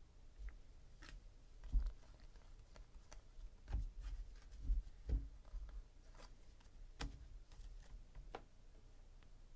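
Sports trading cards and foil card packs being handled on a tabletop: scattered soft clicks and flicks of card stock, with a few dull thumps in the middle.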